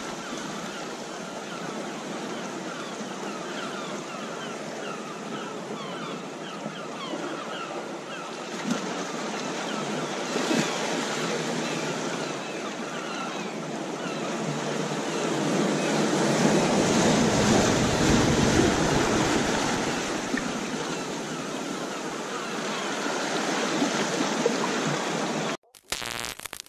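Ocean surf washing onto a beach with some wind, a steady wash of waves that swells louder in the middle and cuts off suddenly near the end.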